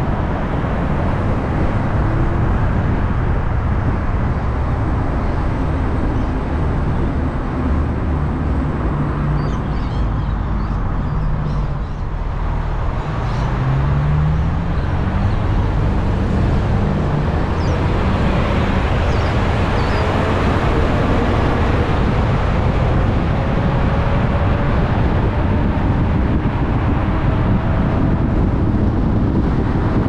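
Car driving along a city road: steady engine and tyre noise, with a faint whine that slowly rises in pitch about two-thirds of the way through.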